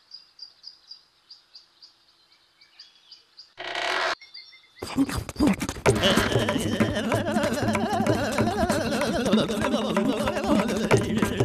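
Forest ambience: a high, evenly repeated chirp about four times a second, a short burst of noise about three and a half seconds in, then a loud, dense chorus of chirps and calls.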